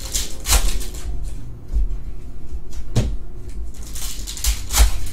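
Trading cards and a pack wrapper handled and rustled in the hands: papery swishes and rustles, with a sharp click about three seconds in.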